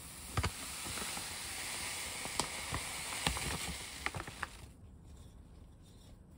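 Malted barley powder pouring into a cotton cloth in a bowl: a steady rushing hiss with scattered ticks of grains, stopping about four and a half seconds in. After that only quieter handling of the cloth.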